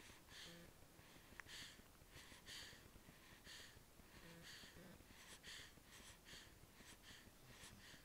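Newborn baby breathing in sleep: a faint run of short, soft, snuffly breaths, about one a second and coming a little quicker midway.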